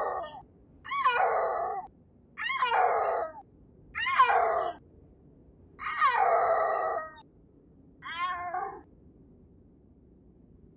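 A cat meowing in a series of drawn-out calls, one about every second and a half. Each call bends up then down in pitch at its start, and the last one is shorter and fainter before they stop.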